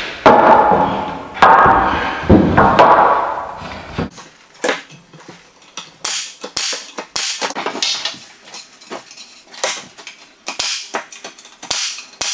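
Pneumatic nail gun firing a string of sharp shots as the corners of a timber door jamb are nailed together. Three loud knocks with ringing come first, during the first few seconds.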